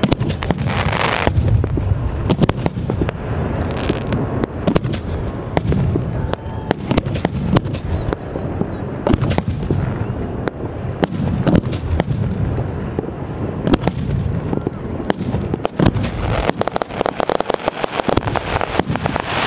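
Aerial fireworks shells bursting close overhead: a continuous run of bangs and crackling, thickening into rapid crackles near the end.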